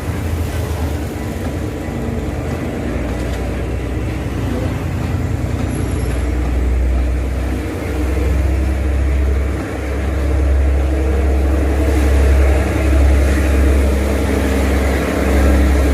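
Sri Lanka Railways Class S10 diesel multiple unit pulling away, its diesel engines running with a deep steady rumble that grows louder toward the end.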